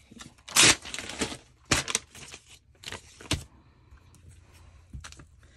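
Collage paper rustling and crinkling as it is handled, in a few short bursts with sharp clicks, then quieter after about three and a half seconds.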